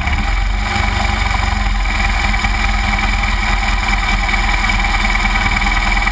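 2009 BMW R1200GS Adventure's boxer twin engine running steadily at low revs, close to idle.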